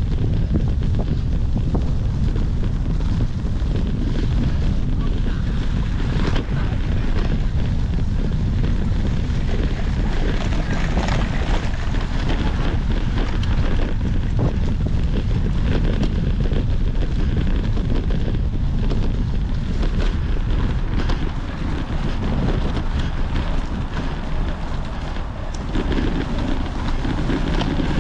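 Wind buffeting the microphone in a steady low rumble, with many small clicks and knocks scattered through it.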